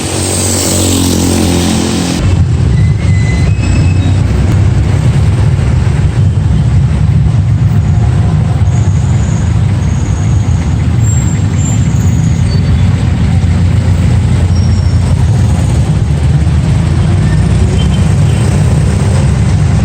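Motor vehicle running with a steady low rumble. The first two seconds also carry a hiss across the high range, which gives way abruptly to a heavier rumble.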